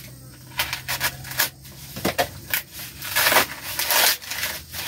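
Dry corn husks being torn and stripped from the ears by hand: an irregular run of crackling, tearing rustles, busiest and loudest about three to four and a half seconds in.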